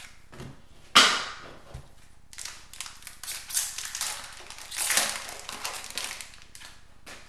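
Hockey card pack wrapper being torn open and crumpled by hand: a sharp crackle about a second in, then a few seconds of uneven crinkling.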